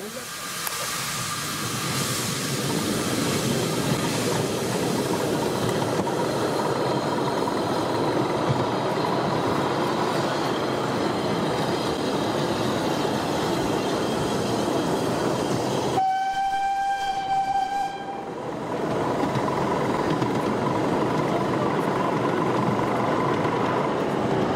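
Miniature steam locomotive running along its track, heard from the riding car: a steady running noise of wheels on rail. About two-thirds of the way through, its whistle sounds once for about two seconds.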